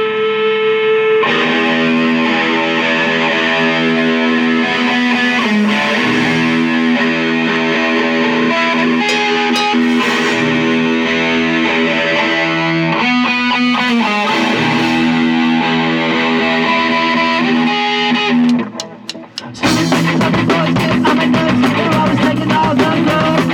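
Punk rock music: distorted electric guitar chords held and left ringing. Near the end the sound drops out briefly, then drums and the full band come in.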